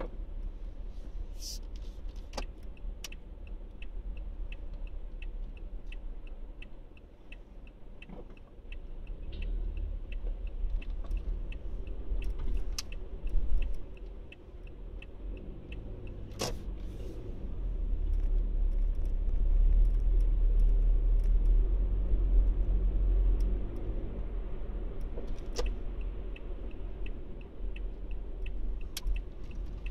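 Car cabin sound: a low engine and road rumble that grows louder in the middle as the car pulls away. A turn-signal indicator ticks steadily, about three clicks a second, for the first dozen seconds and again near the end, with a few sharp knocks in between.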